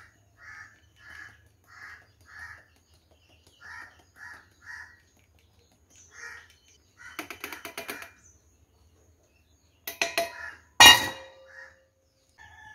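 A crow cawing in quick runs of short, evenly spaced caws through the first six seconds. About seven seconds in comes a rapid rattling of a metal flour sieve being shaken and tapped over a glass mixing bowl. About ten and eleven seconds in there are sharp metallic knocks with ringing, the second the loudest sound.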